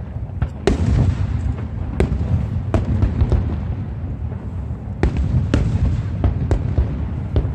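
Aerial fireworks bursting: several sharp bangs over a continuous low rumble, with some echo.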